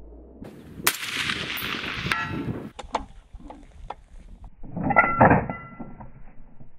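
A single shot from a Ruger Precision bolt-action rifle, its report trailing off in a long echo, with a short metallic ring about a second later. The bolt is then worked: a few light clicks, then loud metallic clacks with a brief ringing note about five seconds in.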